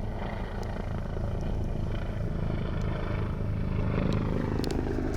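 Mi-8 military helicopter flying close overhead: a steady, loud rotor and turbine drone with fast rotor pulsing, swelling slightly about four seconds in.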